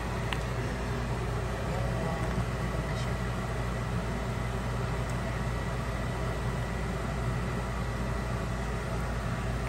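Steady low mechanical hum with a thin high tone over it, and a few faint clicks as a wooden spatula scoops the sticky rice cake.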